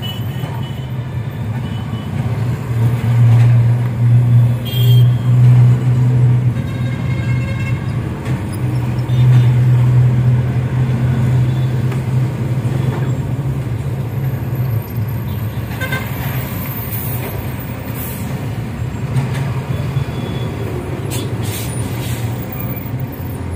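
Diesel engine of a JCB heavy construction machine running, working harder and louder in two spells a few seconds long, with a few brief sharp clanks or hisses.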